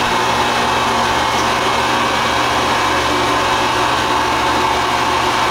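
Electric chum grinder running steadily under load, grinding fish into chum with a constant loud mechanical hum and whir.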